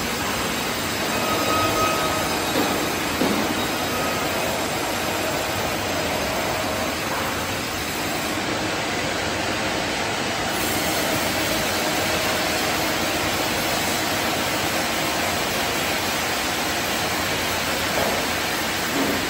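A 9 ft spindleless rotary veneer peeling lathe running, peeling a log into a continuous 0.3 mm veneer sheet. It makes a steady mechanical noise with faint whining tones.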